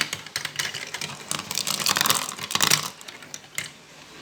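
Marbles clattering through a plastic marble run: a fast, irregular run of small clicks that thins out about three seconds in.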